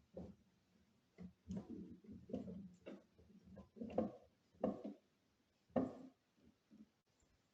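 Irregular light knocks and taps, about eight of them spread unevenly, as wooden parts and hand tools are handled.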